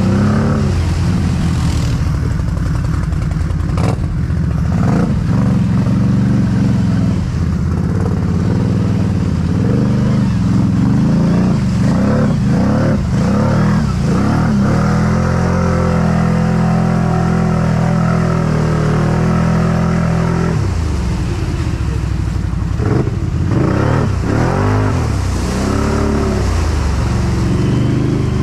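Tuned 2022 Can-Am Outlander 650 XMR's V-twin engine with an RJWC Krossflow exhaust running under throttle on a trail ride, revs rising and falling several times and holding steady for a few seconds midway.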